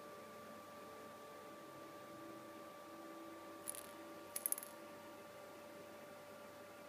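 Cat toy ball with a bell inside jingling briefly as it is knocked about: one short tinkle, then a quick cluster of small metallic clicks about a second later, over a faint steady hum.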